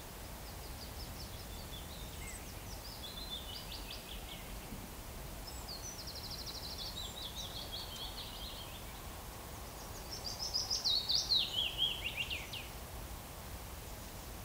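A songbird singing three trilled phrases, each stepping down in pitch, a few seconds apart; the last, about ten seconds in, is the loudest. A steady low outdoor background hum runs underneath.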